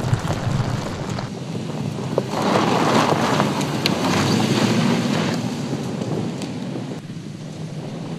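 Toyota Land Cruiser driving on a loose dirt and gravel track: tyre and gravel noise under a low engine note, swelling into a louder rush of tyres over loose dirt from about two to five seconds in.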